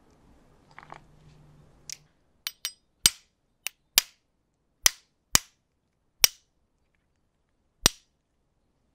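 Metal spoon striking a stone crab claw to crack its hard shell: about ten sharp cracks at irregular intervals, starting about two seconds in.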